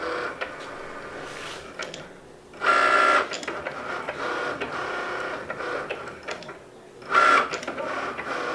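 Cricut Maker cutting machine running as it draws with its fine-point pen on cardstock: the carriage and roller motors give a steady whine with light ticks, briefly louder about three seconds in and again about seven seconds in.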